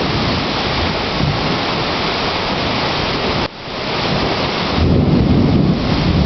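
Heavy rain pouring down steadily, a dense hiss of downpour. There is a brief sudden drop about three and a half seconds in, and a low rumble swells under the rain near the end.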